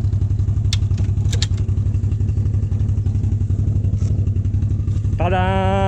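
ATV engine idling steadily, with a few sharp clicks about a second in, then a short spoken exclamation near the end.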